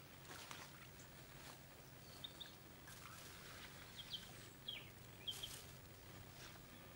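Quiet woodland with a bird giving a handful of short, high chirps in the middle stretch, over faint rustling of leaves and greens being handled.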